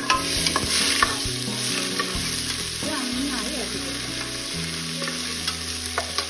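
Ginger-garlic paste and whole spices sizzling in hot ghee in an aluminium pressure cooker base. A spoon stirs them, scraping and clicking against the pan. The paste is being sautéed until its raw smell cooks off.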